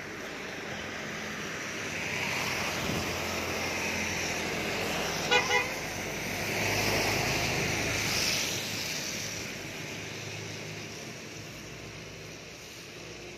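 Traffic passing on a wet road: a hiss that swells over several seconds and fades away. About five seconds in, a vehicle horn gives two short toots in quick succession.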